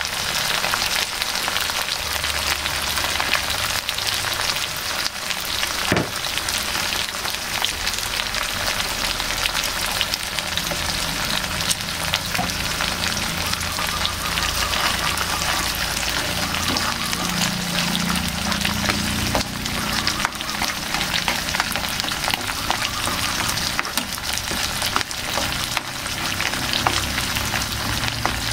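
Chili-and-tomato sambal sizzling in oil in a frying pan, a steady crackle of fine pops as the sauce fries around pieces of pindang tongkol. There is one brief knock about six seconds in.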